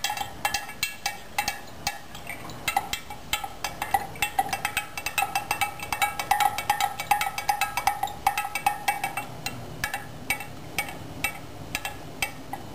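A stirrer clinking repeatedly against the inside of a large glass jar while stirring liquid, a few rapid clinks a second, each with a short glassy ring. This is hydrated lime being mixed into vinegar to neutralize it.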